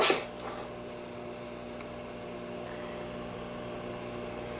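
A brief noisy burst, then a microwave oven running with a steady hum while it heats a marshmallow Peep.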